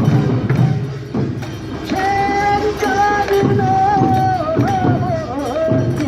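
Korean traditional funeral singing: a lead voice holds a long, slowly bending sung line from about two seconds in, over a steady beat of percussive strikes.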